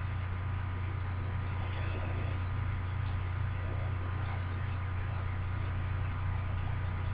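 Steady low hum with a faint even hiss, unchanging throughout: room tone with no distinct events.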